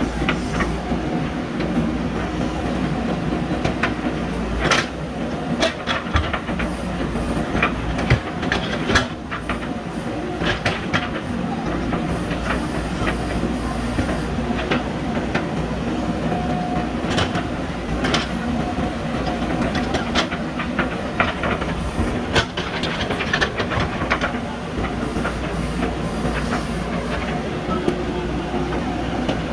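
A JCB backhoe loader's diesel engine running steadily under work, with repeated knocks and clatter from the digging gear.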